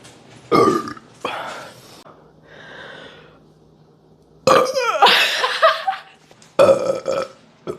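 A person burping several times in a row: two short belches in the first two seconds, a long drawn-out belch with a wavering pitch from about four and a half to six seconds in, then shorter ones near the end.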